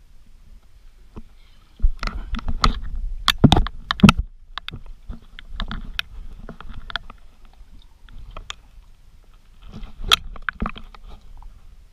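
Water splashing and sloshing close to the microphone as a swimmer moves through the water, in irregular clusters of slaps and splashes, loudest about two to four seconds in and again briefly near ten seconds.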